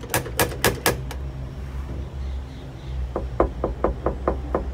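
Knocking on a wooden door: four or five sharp raps in the first second, then, after a pause, a quicker run of about eight duller knocks with the fist.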